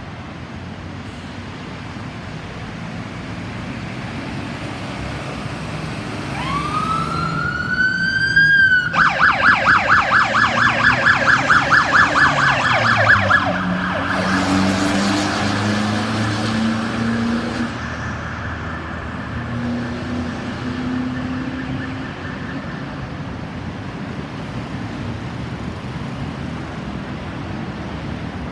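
Ambulance electronic siren over road traffic noise. About six seconds in, the siren rises in a wail, switches to a rapid pulsing yelp for about four seconds, then holds a steady tone that fades away.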